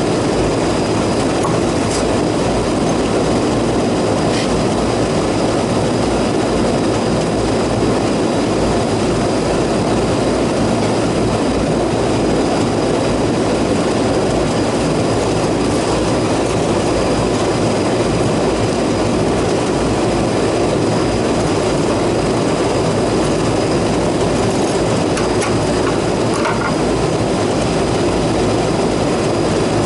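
Steady running noise of rooftop air-conditioning equipment, with a faint steady high-pitched whine over it.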